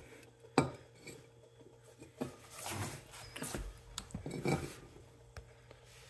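Small metal clinks and handling noise from a brass-fitted refrigerant gauge hose and an R-134a can being moved around, a few separate knocks and short rustles, over a faint steady hum.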